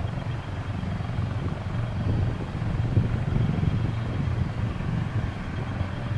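Twin-engine jet airliner on short final approach: a steady low rumble of its engines as it comes in to land.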